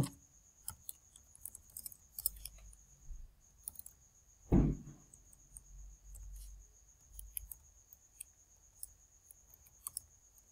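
Computer keyboard being typed on, in short irregular key clicks as a line of text is entered, with one louder thump about four and a half seconds in.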